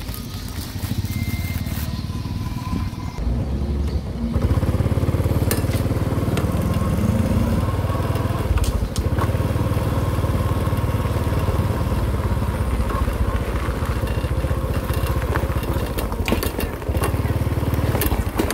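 Small motorcycle engine running, lower for the first four seconds, then louder and steady as the bike rides along a rough dirt road, with occasional knocks from the bumpy surface.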